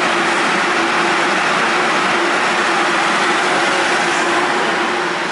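Osaka Monorail 3000 series train standing at the platform with its doors open, its onboard equipment running: a steady rushing hum with one low held tone.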